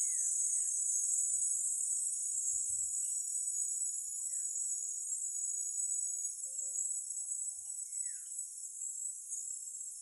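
Dense, steady, high-pitched chorus of insects, with a few faint, short, falling chirps over it.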